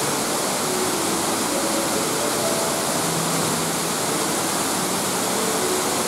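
Steady rush of water from Fukuroda Falls, a large waterfall pouring in several tiers over rock.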